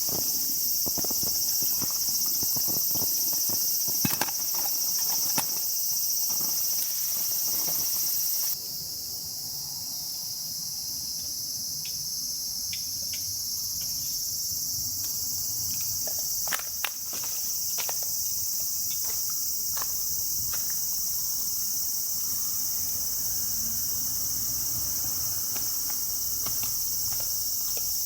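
Steady high-pitched chorus of summer insects, with scattered sharp clicks and taps over it. The chorus changes abruptly and drops slightly in level about eight seconds in.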